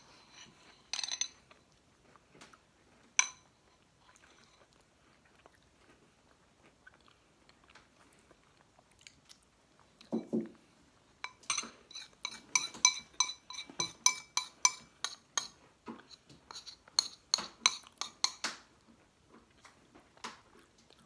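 Metal spoons clinking and scraping against bowls while eating ice cream, with soft chewing. A few single ringing clinks come first; about halfway through, a rapid run of clinks lasts some seven seconds.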